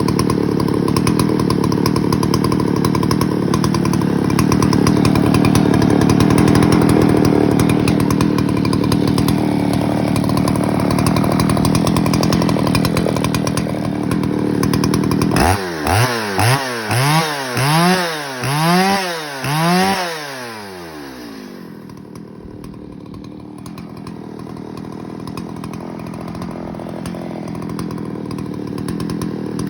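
Stock (unported) Green Machine 7600 two-stroke chainsaw running loud and steady at high throttle, then revved up and let drop about seven times in quick succession, then settling to a steady idle.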